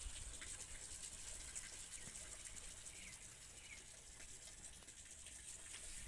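Faint outdoor ambience: a steady high hiss and a low rumble, with two faint short chirps about three seconds in.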